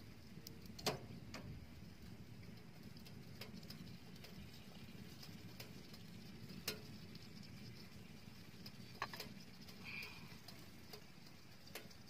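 Wood-burning tent stove with a cooking pot on it: sparse sharp clicks and crackles, one louder about a second in, over a low steady rumble.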